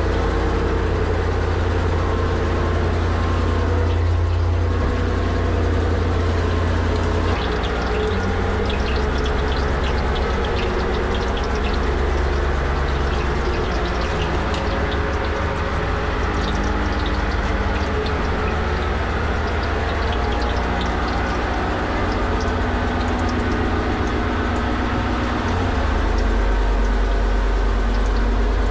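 Boat engine running steadily, a deep, unbroken drone.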